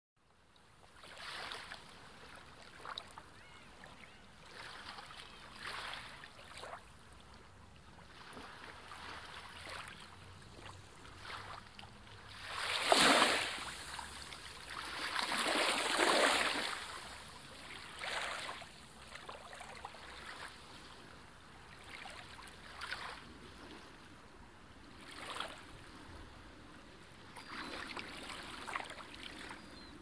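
Sea surf: waves breaking and washing up a shore, swelling and fading every couple of seconds. The two largest waves come about halfway through.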